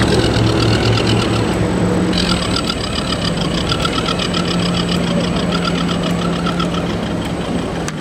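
Radio-controlled 4x4 crawler truck running as it drives, a steady hum with a fast, even ticking that starts about two seconds in.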